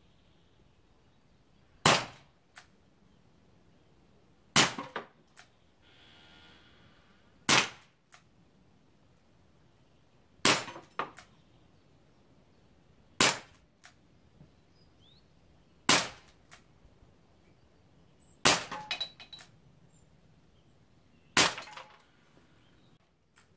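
Smith & Wesson 586 4-inch CO2 air revolver fired eight times, a sharp pop roughly every three seconds, each shot followed by a few fainter clicks. A short hiss comes about six seconds in.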